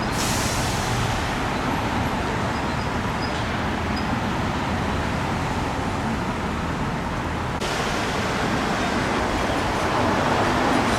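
Steady road traffic noise, an even rush with no distinct events; the hiss brightens abruptly about seven and a half seconds in.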